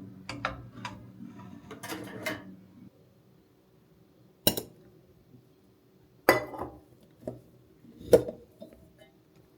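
Kitchenware being handled: light clinks over a low steady hum that stops about three seconds in, then four sharp knocks of dishes or pans being set down, each with a short ring.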